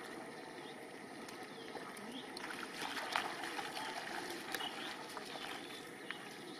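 Bare feet splashing and squelching through shallow muddy water at the edge of a flooded rice field, loudest from about two and a half to four seconds in, over a steady outdoor hiss with faint high chirps.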